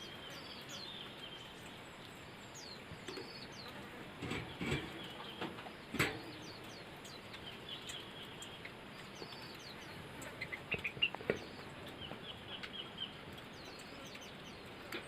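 A white-eye (pleci) gives short, high, falling chirps again and again, with a quick run of louder calls about ten seconds in. A few sharp knocks and rustles from handling come in the middle.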